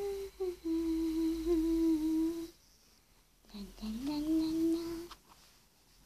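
A person humming a slow tune in long held notes: two held notes, a pause of about a second, then a note that slides up and holds for about a second.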